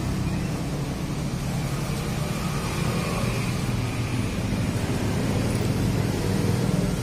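A steady low mechanical hum from a running motor.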